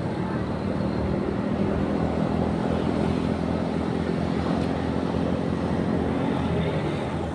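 Motorcycle engine running steadily under way, with a continuous hum over road noise.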